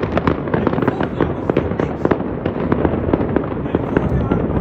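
Fireworks and firecrackers going off in large numbers: a dense, unbroken crackle of overlapping bangs over a steady low rumble.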